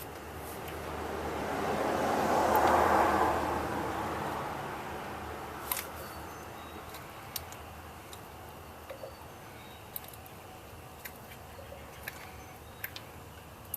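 A vehicle passing by, its noise rising over a couple of seconds and fading away, followed by scattered light clicks and taps.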